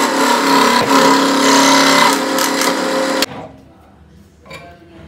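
Bench scroll saw running steadily while cutting a melamine board, then cutting off suddenly about three seconds in. A few faint clicks follow as the piece is handled.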